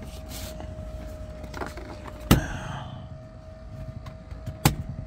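Two sharp knocks, one about two seconds in and one near the end, as tools or parts are handled during seat removal. Under them runs a steady faint high tone.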